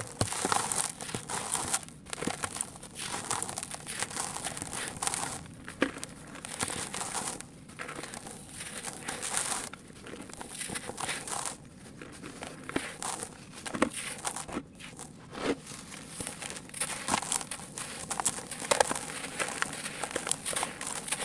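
Hands crumbling a dry, moulded block of gritty grey sand, breaking off chunks and letting the grains fall: an uneven run of crunching and crackling with a few short pauses.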